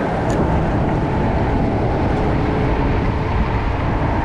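Wind buffeting the microphone in a steady, dense rumble.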